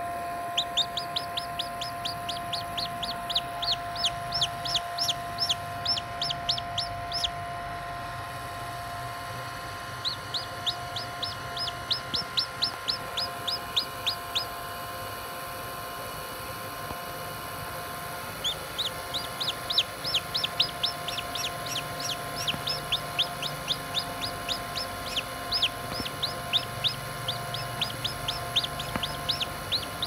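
Newly hatched chick peeping: runs of short, high, falling cheeps, about three a second, in three bouts with pauses of a few seconds between them.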